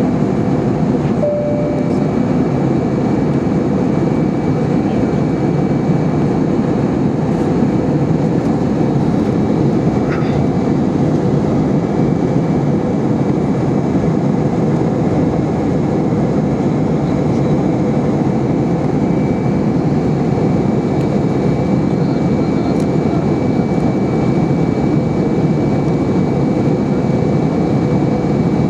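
Steady cabin noise of an Airbus A320-232 in flight, heard from a window seat beside its IAE V2500 engine: a dense, even rumble of engine and airflow. A faint steady high whine grows clearer about ten seconds in, and a short tone sounds about a second in.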